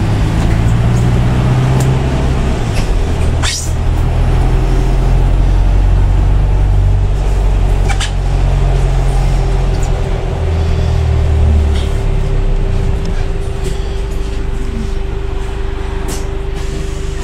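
Interior ride noise of a Wright-bodied Volvo B5LH hybrid bus on the move: a loud low drone of drivetrain and road with shifting low notes, broken by short rattles and clicks from the fittings. A steady hum joins about halfway through.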